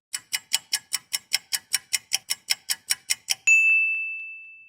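Fast clock-ticking timer sound effect, about five ticks a second for roughly three seconds, ending in a single bright ding that rings on and fades: the countdown running out.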